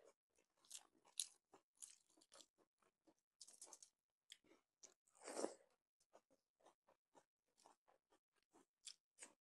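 Soft, close-up crunching and chewing of crisp fried papad eaten with rice: a string of short crackles, with one louder, longer crunch about five seconds in.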